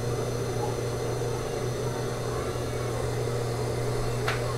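Steady low electric hum of a running motor, with one sharp click near the end.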